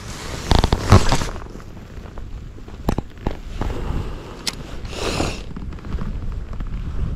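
Jacket and sleeves rustling and a few sharp clicks as a light spinning rod is cast and the spinning reel is handled and wound, over a low wind rumble. The loudest rustle comes about a second in; single clicks follow near the middle.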